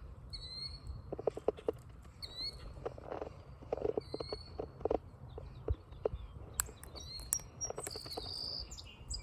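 Close clicks and rustles of hands working treble hooks out of a small bass's mouth, while a bird repeats short, high chirps about once a second.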